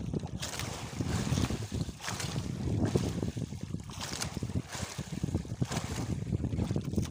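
Wind buffeting the microphone over the wash of sea waves around a small outrigger boat, surging and easing irregularly.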